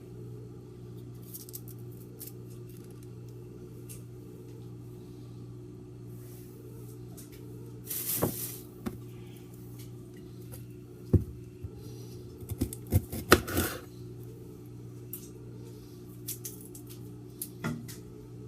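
Kitchen handling sounds: scattered clicks and knocks of dishes and utensils, with a short rustling burst about eight seconds in and a cluster of sharp knocks a few seconds later, over a steady low hum.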